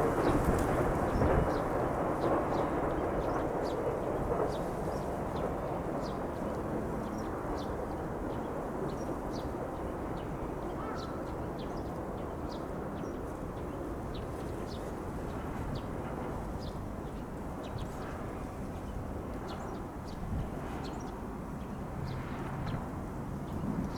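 Rumble of a passing E231-series electric commuter train fading away as it recedes, settling over the first several seconds into a steady low background. Faint bird chirps are scattered throughout.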